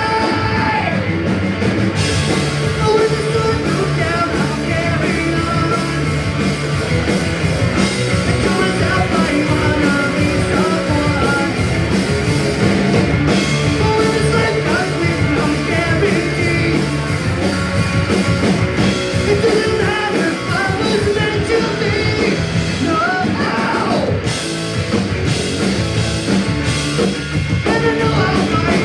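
Punk rock band playing live, with drum kit and singing over the loud, dense full-band sound.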